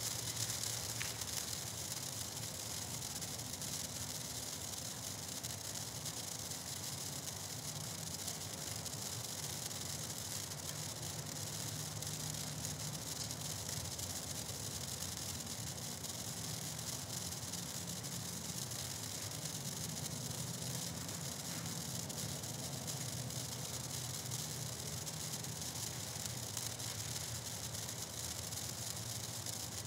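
Black Cat Neon Sparkler burning with a steady fizzing hiss as it throws off sparks.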